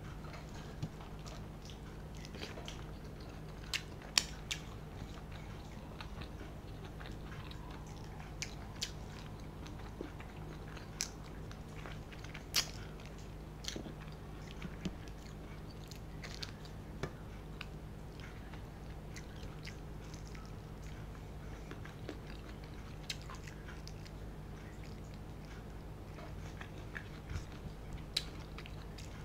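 Close-miked eating sounds of someone chewing rice and curry eaten by hand, with scattered sharp clicks and smacks every second or so over a faint steady low hum.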